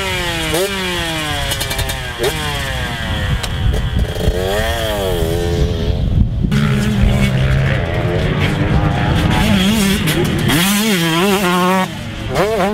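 2019 KTM 125SX single-cylinder 125cc two-stroke engine. First the bike stands still while the throttle is blipped a few times, the revs snapping up and falling back. Then it runs on the track, revving up and down through the gears, with the throttle briefly shut just before the end as the bike leaves a jump, then picked back up.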